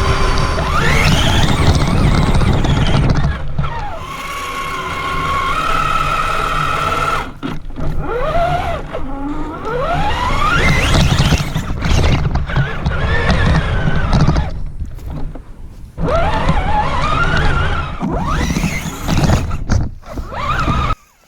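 Traxxas Summit RC truck's brushed electric motor and gearbox whining, rising and falling in pitch as it speeds up and slows down, over a rumble of tyres and drivetrain on rough ground. The whine cuts off suddenly near the end.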